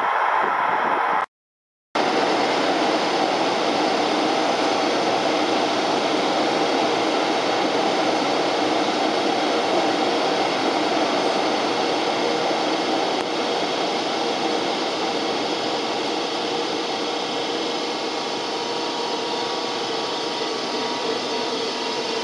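DB class 101 electric locomotive at close range, its cooling blowers and electrical equipment running with a steady whirring hum that holds several even, unchanging tones. The sound cuts out briefly about a second in and then carries on unchanged.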